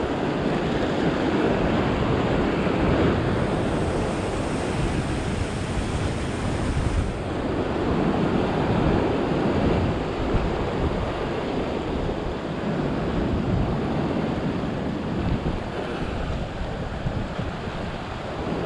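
Sea waves surging and washing against a rocky shore ledge, swelling and easing, with wind buffeting the microphone.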